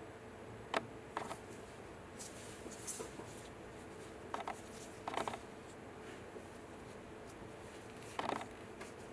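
Disposable plastic gloves crinkling and scuffing against a 3D-printed resin diamond as it is turned over in the hands, with a few short clicks and rubs, over a faint steady hum.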